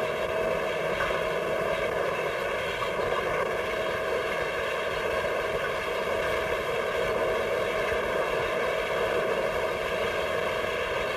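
Glass bottle factory machinery running: a continuous mechanical drone with a steady hum through it.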